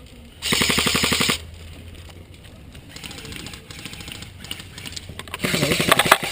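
Airsoft electric gun firing full-auto: a fast rattling burst of about a second starting half a second in, then another rapid burst near the end.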